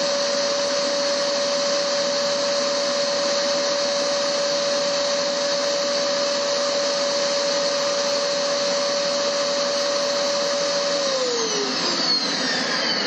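Vacuum cleaner running steadily, a loud rushing of air with a high, even whine. Near the end the whine starts falling in pitch as the motor begins to spin down.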